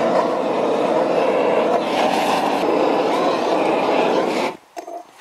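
Handheld gas torch flame burning with a steady rushing noise, heating a leaf-spring steel cleaver blade clamped in a vise to temper it while it is held straight. The flame cuts off abruptly about four and a half seconds in.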